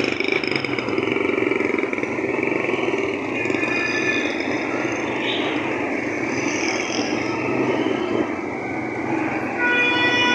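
Motorcycle riding through heavy traffic: its engine runs steadily under the noise of the vehicles around it. Near the end a vehicle horn starts and is held.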